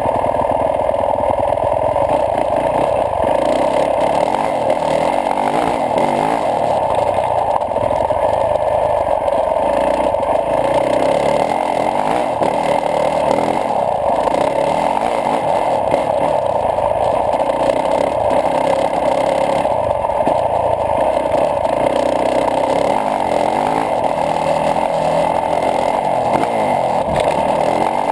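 Yamaha YZ450F single-cylinder four-stroke dirt bike engine running under way, its revs rising and falling as the bike rides along a dirt track, over a steady rush of wind noise.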